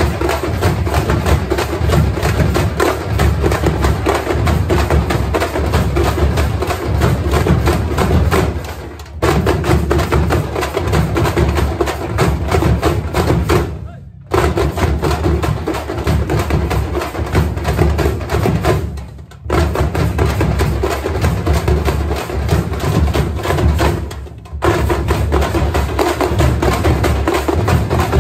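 A large troupe of frame drums beaten with sticks, playing a fast, dense rhythm that breaks off briefly about every five seconds before starting again.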